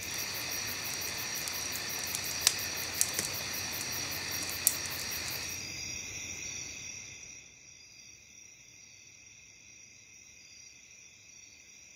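Crickets chirping steadily in the night, over the hiss of a wood fire that gives three sharp pops in the first half. The fire hiss fades out about seven seconds in, leaving the insects alone and quieter.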